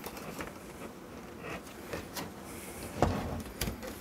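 A PC case's front panel being handled as its clips are squeezed: small clicks and rubbing, with a sharp knock about three seconds in and a lighter one just after.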